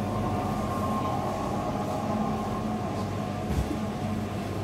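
Steady mechanical hum and rumble with a faint higher steady tone, and one low thud about three and a half seconds in.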